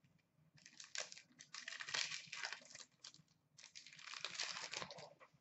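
Hockey card pack wrapper crinkling and tearing as it is opened by hand, in two stretches of rustling with a short pause between.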